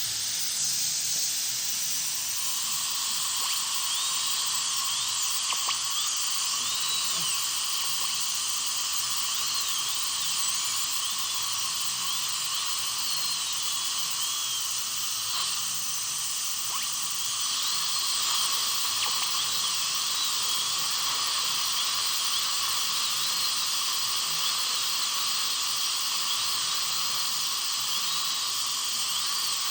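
High-speed dental drill with water spray, running continuously as a steady high-pitched whine with hiss, its pitch wavering slightly. It is cutting away old fillings and the new decay around them at the gumline.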